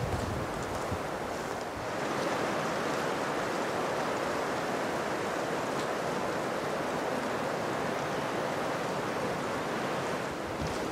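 Footsteps on the leaf-covered forest path for the first couple of seconds, then a steady, even rushing noise.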